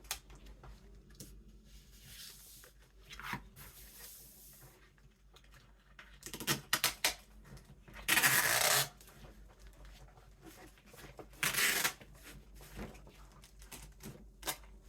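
Packing tape pulled off the roll in two ripping pulls, a longer one about eight seconds in and a shorter one near twelve seconds, with light clicks and rustles of cardboard being handled.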